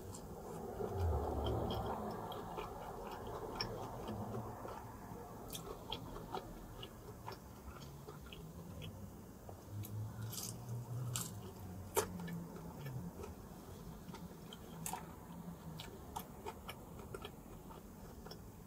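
A person chewing pepperoni pizza close to the microphone, with scattered small mouth clicks and one sharper click about twelve seconds in.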